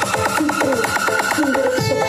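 Electronic dance music played loud through a large 'sound horeg' carnival speaker system during a sound check: a fast run of falling-pitch kick drum strokes under a synth melody, switching to a heavier bass beat near the end.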